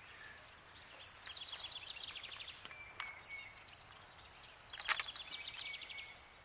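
A songbird singing: two fast trills of high notes, with short thin whistles between them. A sharp click about five seconds in.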